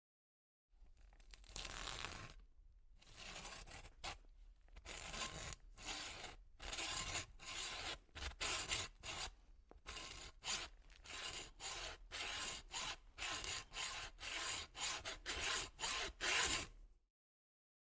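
A saw cutting through a deer's leg bone in repeated back-and-forth rasping strokes. The strokes start slow and settle into a steady rhythm of about two a second, then stop.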